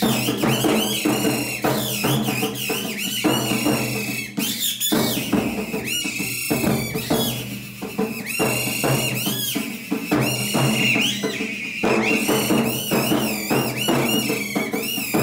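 Rapid drumming in a galloping rhythm that imitates a horse's hoofbeats, with a kathputli puppeteer's reed whistle (boli) squeaking and warbling high above it.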